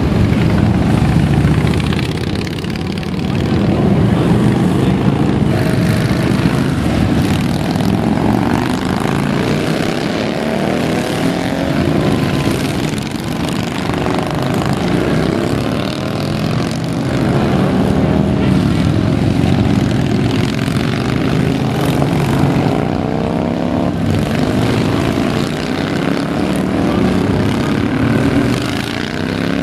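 A stream of motorcycles riding past, their engines running loud and continuous, with the pitch rising and falling as individual bikes go by.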